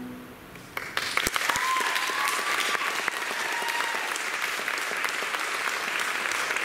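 Theatre audience applauding and cheering, breaking out about a second in as the music ends, then holding steady.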